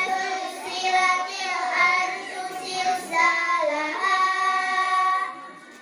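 Girls' voices chanting a melodic Quran recitation of a short surah, amplified through microphones, in long held phrases that break off briefly near the end.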